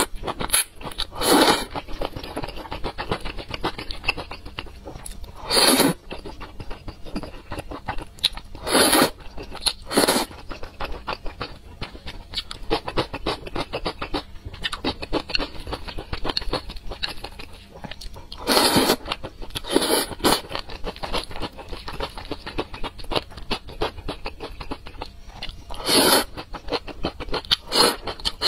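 Close-miked chewing and slurping of thick noodles in spicy sauce: continuous wet, clicky chewing broken by several louder slurps.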